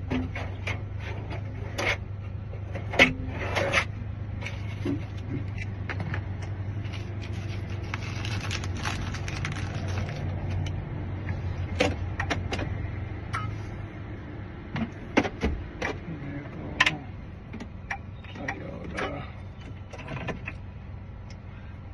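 Scattered clicks and small metallic taps from handling a removed car door lock cylinder and its tools, over a steady low hum that drops away about two-thirds of the way through.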